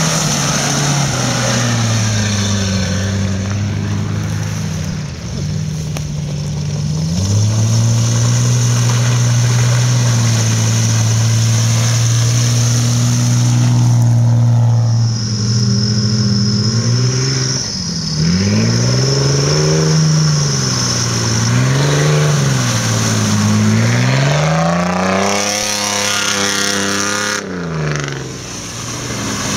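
Off-road 4x4's engine under load, held at steady revs for about ten seconds, then revved up and down repeatedly, about five rises and falls, in the second half.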